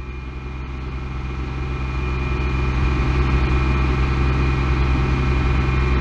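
1999 Ford Explorer's 4.0L SOHC V6 held at a steady fast idle of about 2,500 rpm, heard from inside the cabin, growing slowly louder. It is being held there to test for a vacuum leak, which the owner concludes it has because the fuel trims improve at this speed.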